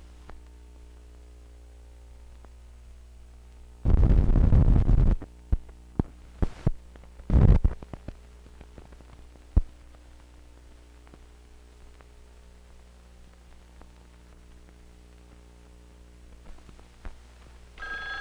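Steady electrical hum on an old film soundtrack running through blank leader, broken about four seconds in by a loud rush of noise lasting a little over a second, then a scatter of clicks and pops and a second short rush of noise a few seconds later. A telephone bell starts ringing right at the end.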